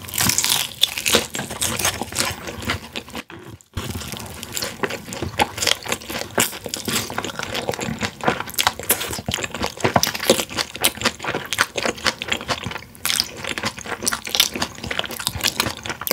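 Close-miked chewing and crunching of crispy boneless fried chicken, with many irregular crackly bites. The sound cuts out briefly about three seconds in.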